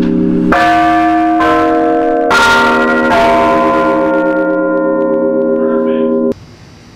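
Large bronze tower bells struck four times about a second apart, each at a different pitch, the tones ringing on and overlapping. The ringing cuts off suddenly near the end.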